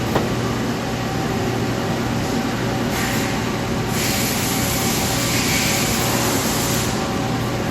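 Nomura NN-25YB Swiss-type CNC lathe running with a steady mechanical hum and a few held tones, a click just after the start. A hiss comes in about three seconds in, grows louder for the next three seconds, then drops away.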